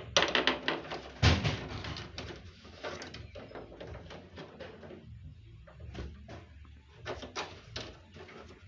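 Hard objects being handled: an irregular run of clicks, knocks and scraping, with loud knocks at the start and about a second in, and another cluster of clicks near the end.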